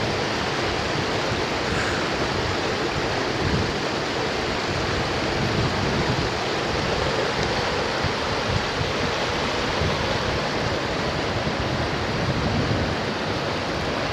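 Mountain river water rushing steadily over a small boulder cascade into a clear pool, an even white-water roar.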